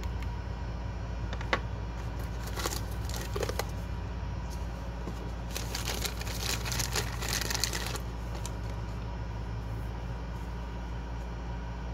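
Clear plastic bag crinkling as it is handled, densest from about six to eight seconds in, with a sharp click and shorter crackles earlier. A steady low hum runs underneath.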